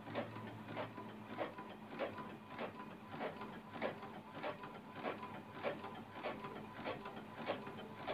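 Epson L3150 inkjet printer printing a page: the print-head carriage shuttles back and forth with regular clicks about twice a second as the paper feeds out, over a faint steady hum.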